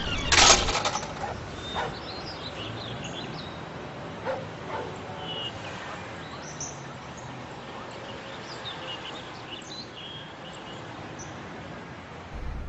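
Birds chirping in the background, short high calls scattered through, with a loud clatter about half a second in.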